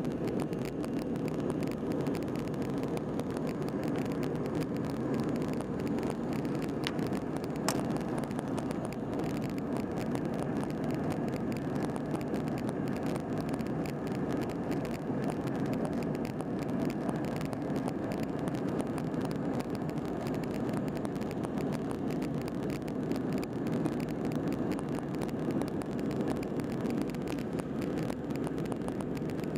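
Steady cabin noise inside an Airbus A320 in its climb after takeoff: engine drone and rushing airflow heard through the cabin, mostly low in pitch and unchanging.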